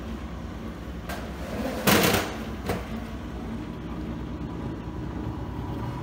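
Vector TF-156 roller compactor running with a steady low machine hum. A brief loud rush of noise comes about two seconds in, with a click just before and another just after.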